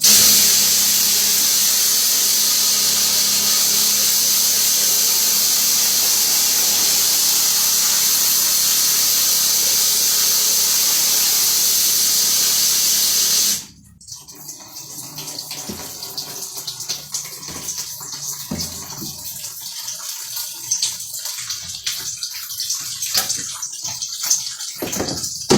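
Water spraying in a steady hiss onto a screen-printing screen to wash out water-based ink. It cuts off suddenly about thirteen and a half seconds in, leaving quieter, uneven sounds.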